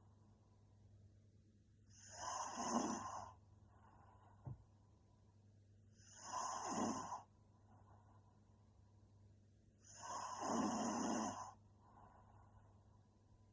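A sleeping woman snoring: three snores about four seconds apart, with fainter breathing between them. A short low thump comes about a third of the way through.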